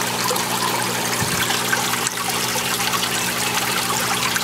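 Water trickling and splashing steadily into an aquaponics fish tank, with a low steady hum underneath.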